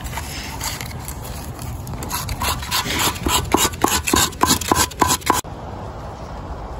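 Knife blade scraping birch bark in quick repeated strokes, about four a second, shaving it into fine tinder. The scraping gets louder about two seconds in and cuts off suddenly about five seconds in, leaving a steady low outdoor background.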